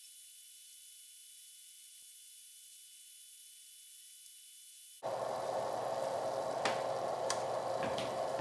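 Faint steady high hiss, then about five seconds in a sudden switch to louder steady sizzling from a pizza just done on a Presto Pizzazz Plus rotating pizza oven, with three or four sharp clicks near the end.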